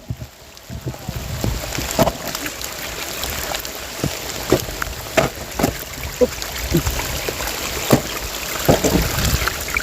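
Heavy rain falling as a steady hiss that comes in about a second in, with scattered knocks and taps over it.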